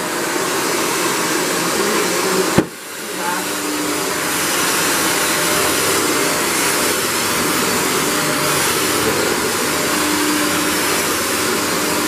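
Shark NV602UKT Lift-Away upright vacuum cleaner running on carpet, a loud, steady motor whoosh. About two and a half seconds in there is a sharp click, after which the sound briefly drops and then builds back up.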